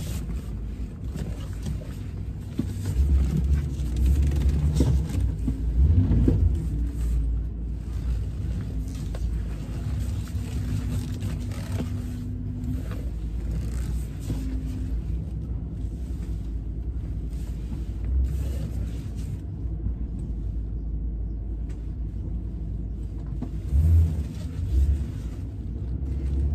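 Low road and engine rumble heard inside the cab of a truck on the move, steady throughout, swelling louder a few seconds in and again near the end.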